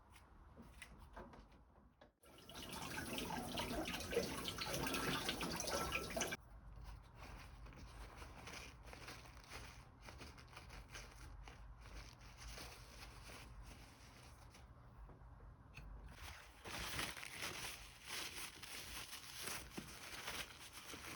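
Water running from a kitchen tap for about four seconds, starting about two seconds in, with faint handling noises before and after.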